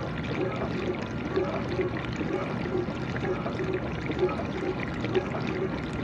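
GE dishwasher running mid-cycle: water spraying and splashing inside the tub, with a low pulse about twice a second.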